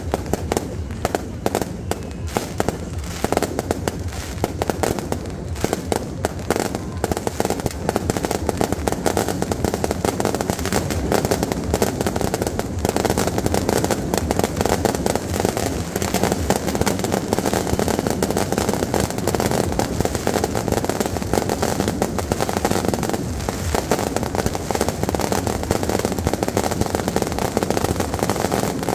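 Fireworks going off in a dense, continuous crackle of rapid bangs.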